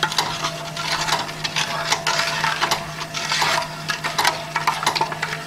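A spoon stirring sugar syrup in a pot, scraping and clinking against the pot in quick irregular strokes while the sugar dissolves. A steady low hum runs underneath.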